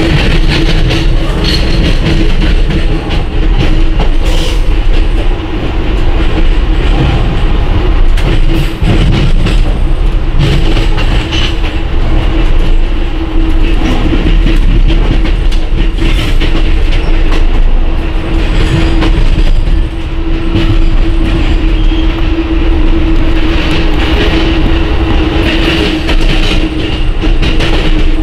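Running noise of a moving passenger train heard from inside the car, with a freight train of intermodal container cars passing close on the next track: steady rumble with wheels clicking over rail joints and a steady hum underneath.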